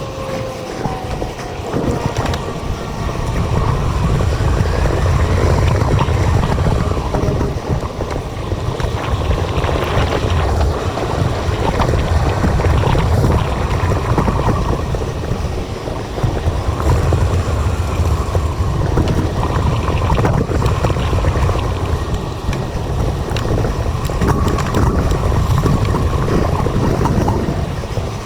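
Wind buffeting the microphone of an action camera on a moving bicycle: a heavy, steady rumble that swells and eases every few seconds.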